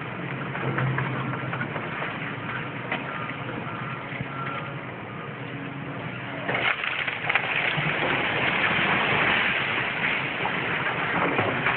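Diesel engine of a hydraulic excavator running steadily. From about six and a half seconds in, a long, loud crashing clatter of brick and debris falling as a section of the building's wall collapses.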